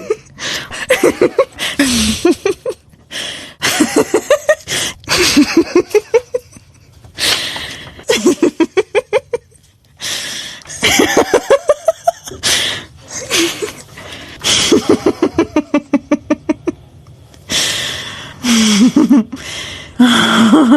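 Human laughter played as a string of separate laughs, each a burst of rapid pulses with short gaps between laughs.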